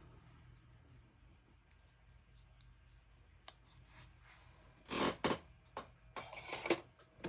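Scissors cutting paper: a few quick snips, clustered in the second half, after a quiet stretch with a single faint click.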